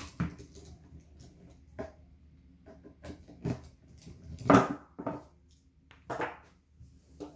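Short clicks and knocks of a small red-dot optic being worked off a gel blaster's top rail, with a screwdriver handled on a wooden table; the loudest knock comes a little past halfway.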